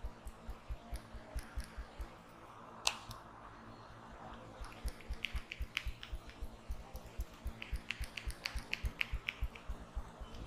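Rhythmic percussive hand massage: the barber's hands pat and pound in a steady beat of dull thumps, about three a second. One sharp click comes about three seconds in, and from about halfway on quick crisp hand-slap clicks join the thumps.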